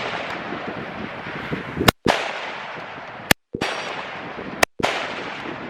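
Rifle shots on an outdoor range: three sharp reports about a second and a half apart. After each one the sound cuts out briefly, then a long echo fades away.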